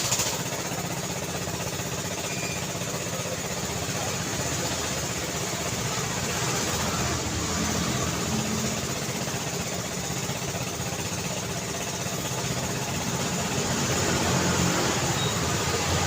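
Busy city street traffic: a steady wash of vehicle engines and tyre noise, with a low engine hum that grows a little louder near the end.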